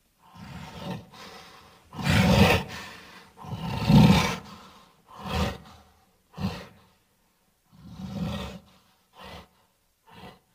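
A person vocally imitating a dinosaur: a series of about eight rough roars and growls. The loudest, longest ones come in the first half, and they trail off into short grunts near the end.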